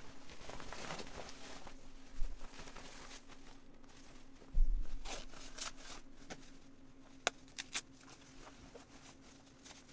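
Textile motorcycle jacket rustling as it is swung on and zipped up the front, with two dull thumps about two and four and a half seconds in. Near the end a few sharp clicks come as a cuff is fastened, over a steady low hum.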